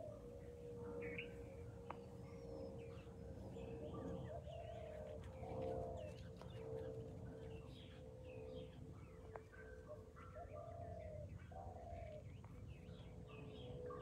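Birds chirping and calling faintly in the background, short high chirps mixed with lower repeated calls, over a steady hum.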